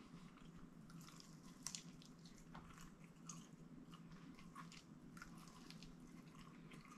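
Faint chewing, with scattered small wet clicks and crackles and a slightly louder pair about a second and a half in, over a low steady room hum.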